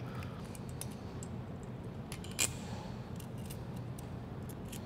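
Faint clicks and light metal handling as the winch's blue and yellow cable terminals are fitted onto its terminal posts, with one sharper click about two and a half seconds in.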